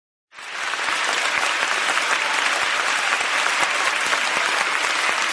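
Audience applauding, a dense steady clapping that cuts in abruptly from silence just after the start.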